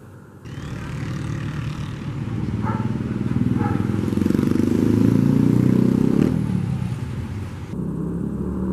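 A motor vehicle passing along a street: its engine grows louder for several seconds, peaks a little past the middle, then fades.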